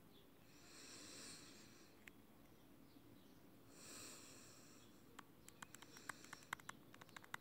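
Faint breathing close to the phone's microphone, two soft breaths, followed by a quick run of small clicks and taps in the last two seconds, as a finger works the phone's touchscreen.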